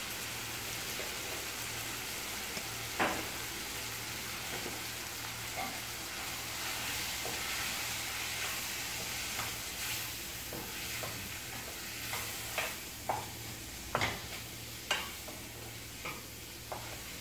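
Onion, tomato and green chilli sizzling steadily in oil in a nonstick kadai while a wooden spatula stirs through them. A single knock about three seconds in, then a run of sharp knocks of the spatula against the pan in the last five seconds.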